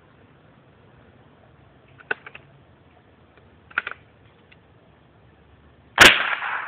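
.22 rifle fired once, about six seconds in: a sharp crack whose echo fades out over the next half second or more. Before it, two brief clusters of small clicks, about two seconds apart.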